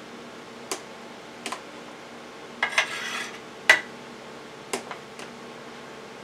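A metal spoon clinking and scraping against a metal baking pan and a food container as cooked ground beef is spooned in. There are a handful of separate clinks, a short scrape just before the middle, and the sharpest clink just after it.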